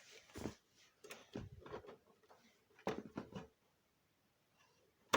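Scattered clicks and knocks in a few short groups, like something being handled at close range.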